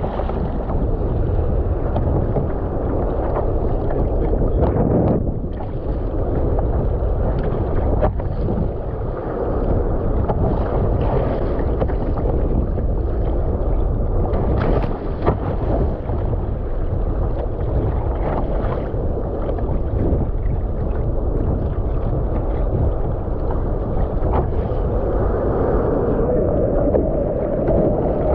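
Water rushing and splashing along the hull of an Epic V7 surfski as it runs on waves under paddle power, with occasional splashes from the paddle blades.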